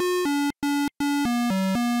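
Video-game-style synthesizer music: a bouncy tune of short, clipped notes, about four a second, with brief gaps between some of them.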